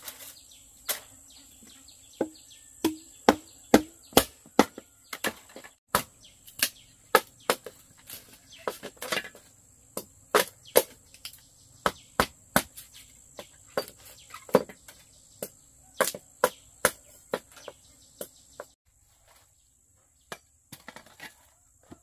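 Repeated sharp chopping strikes, unevenly spaced at about two a second, stopping a few seconds before the end.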